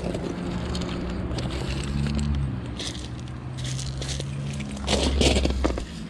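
A car engine running steadily, its pitch rising and falling slightly about two seconds in, with crackling and scraping of weeds being pulled out of crushed rock. Near the end the engine stops and the crackling of weeds and gravel grows louder.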